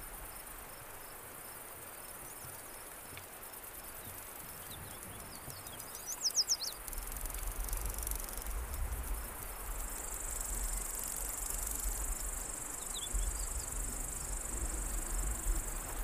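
Insects chirring steadily in open grassland, growing denser and louder about ten seconds in. A few short bird chirps come through about five to six seconds in and again near the end, over a low rumble that starts about halfway through.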